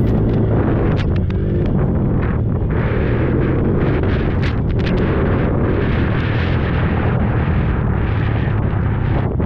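Small youth racing quad's engine running steadily under load, buried in heavy rushing noise typical of wind on the microphone, with scattered knocks and rattles.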